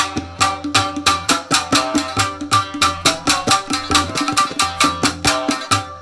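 Shamisen and tabla playing together: quick, even plucked shamisen notes over rapid tabla strokes, with a low ringing drum tone underneath.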